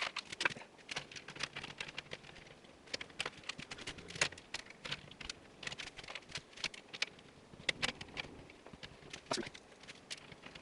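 Irregular light clicks and taps of plastic and metal as a case fan is handled and fitted into the front of a PC case.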